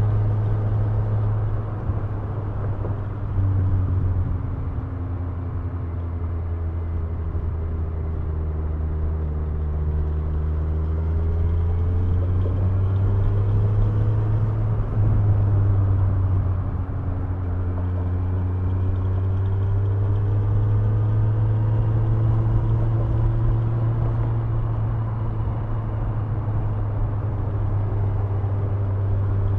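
Kawasaki Ninja 1000's inline four-cylinder engine and exhaust running under way at road speed. The engine note sinks slowly over several seconds, climbs again, breaks briefly about halfway through, then rises and holds steady with the throttle.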